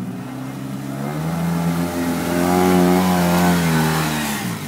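Off-road vehicle engine revving up, rising in pitch and loudness to a peak about three seconds in, then easing off near the end.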